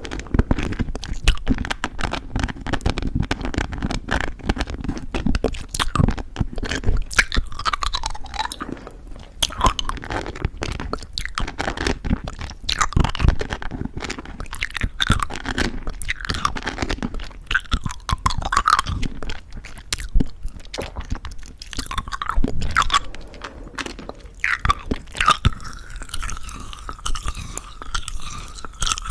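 Close-miked chewing of crunchy, sugar-coated chewy jelly candies (plum Happy Jelly), with many sharp crunches and clicks of the coating breaking. Near the end the crunching thins out into softer wet mouth sounds as the candy is sucked.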